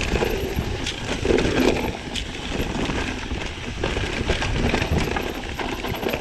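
Mountain bike riding fast over rough, rocky trail: tyres rolling over stones and the bike rattling, with frequent short knocks and clicks.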